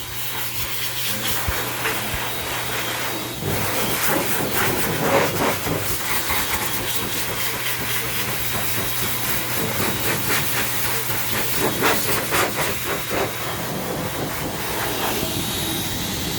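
Handheld hair dryer blowing air, a steady hiss, with a low motor hum that stops and a louder rush taking over about three and a half seconds in, plus light rubbing and handling noises.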